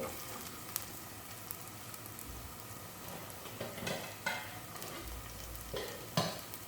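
Chopped shallots, green chillies and ginger sizzling in hot coconut oil in a pan, with a utensil scraping and stirring against the pan a few times. The steady sizzle marks the onions wilting in the oil.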